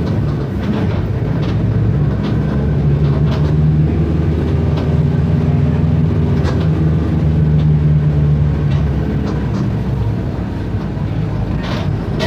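Diesel engine of a Mercedes-Benz OF 1519 city bus running under way, its pitch rising and settling as it pulls, with a few light clicks and rattles from the bus body.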